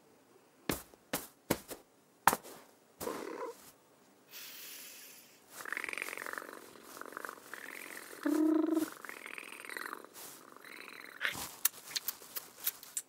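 Cartoon cat sound effects voiced by a person: a few soft taps and clicks, then several seconds of purring with repeated rising-and-falling trills, and a short pitched cat call about eight seconds in.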